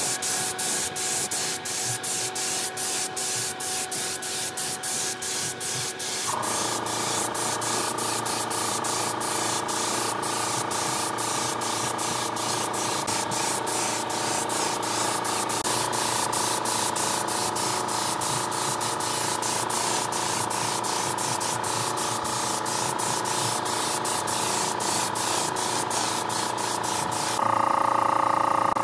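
Compressed-air tool hissing steadily, with many short, evenly spaced dips, over a steady machine hum whose tone steps up about six seconds in and shifts again midway. The hiss cuts off near the end.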